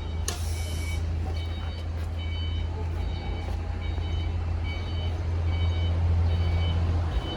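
Steady low hum of a diesel generator set running, with an electronic beeper sounding about twice a second over it. A short hiss comes about half a second in.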